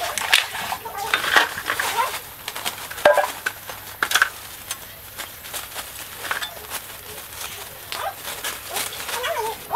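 Scattered metallic clinks and knocks of rusty metal parts being handled on a concrete floor, loudest about a second and three seconds in. A few brief voice-like calls sound faintly among them.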